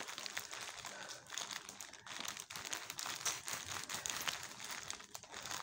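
Orange plastic poly mailer bag crinkling and crackling irregularly as it is handled and turned over on a table.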